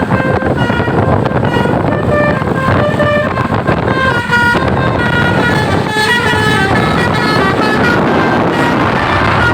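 Bus telolet basuri multi-tone air horn playing a fast tune of short notes, several a second, stepping up and down in pitch without a break, over a steady noisy rush.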